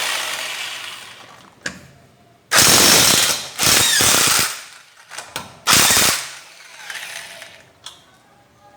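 Impact wrench with a 19 mm socket hammering on wheel bolts in reverse to loosen them: several loud rattling bursts, the first winding down over a couple of seconds, then two long bursts, a short one and a weaker one near the end, with small clicks in between.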